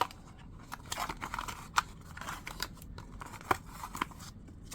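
Paper instruction manual and packaging being handled: light rustling with scattered sharp ticks and crinkles.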